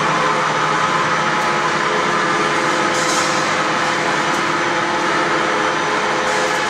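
Pulley-type steel wire drawing machines running: a loud, steady machine drone with several constant tones, and a short hiss about three seconds in.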